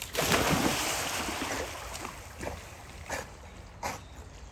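Water splashing and sloshing around dogs wading in a pond or creek: a loud splash just after the start that dies away over a second or two, then a few lighter splashes.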